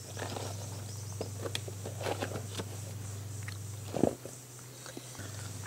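Hands handling sticky ripe jackfruit bulbs on a dry palm sheath: small squelches and scattered light clicks. Under them runs a low steady hum that stops about four seconds in, at a short thump.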